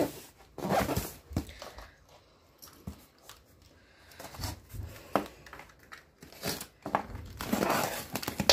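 Small box cutter slicing the plastic packing tape on a cardboard box, with short scrapes and rustles of tape and cardboard and a longer rasping cut near the end.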